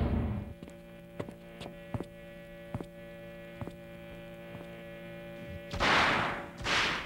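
A steady electrical hum made up of several steady tones, with scattered faint clicks, from an animated short's soundtrack. Near the end come two loud rushing noise bursts about a second apart.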